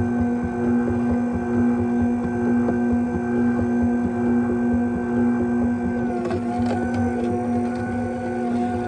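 Orfeld slow masticating juicer's electric motor running on its soft setting with a steady hum while cucumber pieces are pushed down the feed chute into the auger; the pitch steps up slightly about six seconds in, with a few faint clicks.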